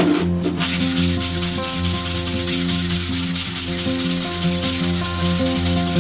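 Hand sanding of a wooden cutting board: sandpaper on a sanding block rubbed rapidly back and forth across the wood, an even scratching that starts about half a second in.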